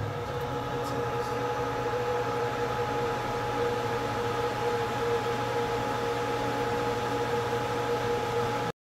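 BGA rework station's cooling fans running steadily in its automatic cooling mode after reflow, a rushing air noise with a low hum and a steady whine. It cuts off abruptly near the end.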